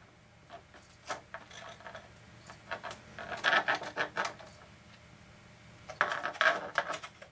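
Clear acetate sheet crinkling and clicking as it is folded and pressed together by hand to stick its edges with sticky strip tape. The handling noise comes in short bursts, busiest about three and a half seconds in and again near the end.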